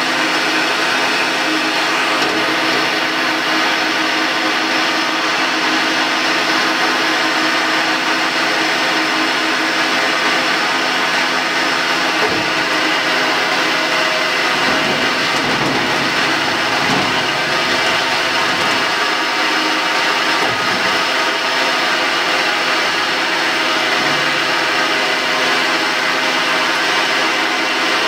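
Blanchard 18-36 vertical rotary surface grinder running with nothing on its magnetic chuck. Its 25 hp spindle drive makes a steady machine drone with several held tones over a hiss; it is running idle, not grinding.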